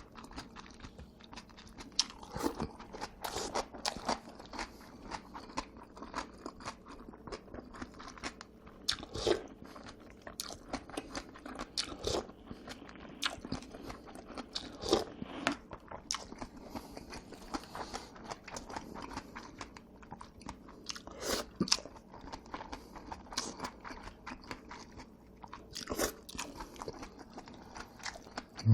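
Close-miked eating sounds of a person chewing jajangmyeon and jjamppong noodles: wet chewing and mouth smacks with many short, irregular clicks.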